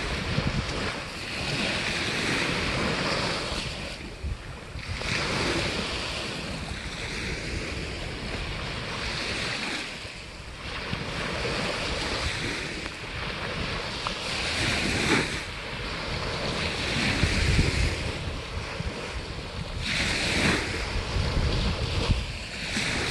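Sea waves washing onto the shore, swelling and ebbing every few seconds, with wind buffeting the microphone in low rumbling gusts.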